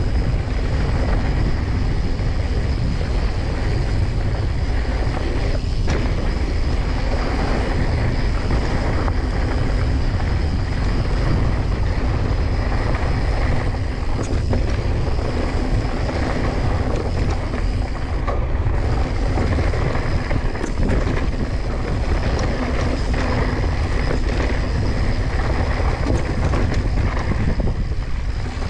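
Mountain bike rolling down dry, rocky dirt singletrack: tyres crunching over dirt and rock with constant small clatters from the bike, under steady wind buffeting on the microphone.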